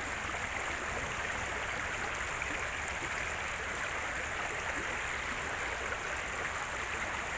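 Steady rushing of river water, an even flowing sound with no breaks.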